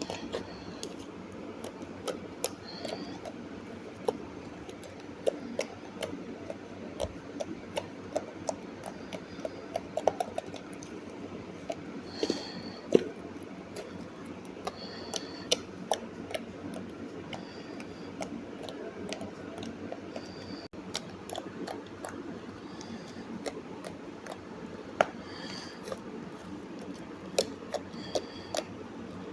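Close-up ASMR handling sounds: scattered small clicks, taps and crackles at an irregular pace, some with a brief squeaky edge, over a steady faint hiss.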